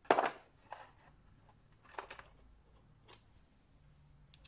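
Metal clacks of a Ford C4 automatic transmission valve body being handled and fitted together on the bench: one sharp clack at the start, then four fainter clicks spread over the next few seconds.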